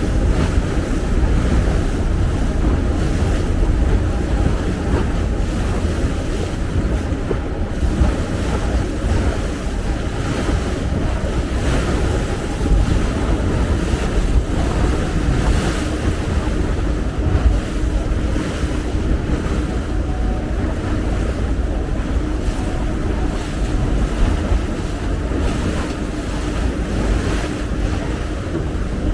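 Wind buffeting the microphone on the deck of a moving tour boat, over water rushing past the hull and the steady hum of the boat's engine.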